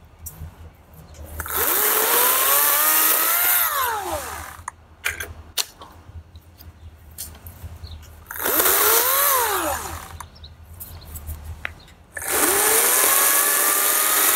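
EGO 56V cordless 14-inch chainsaw running in three bursts as it bucks firewood. Each time, the electric motor's whine climbs as it spins up. In the first two bursts it falls away as it winds down; the last holds steady and is still running near the end. Light clicks and knocks come between the bursts.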